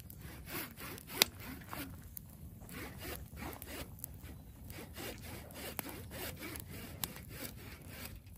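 Repeated rough scraping or rubbing strokes, irregular in spacing, with one sharp click about a second in.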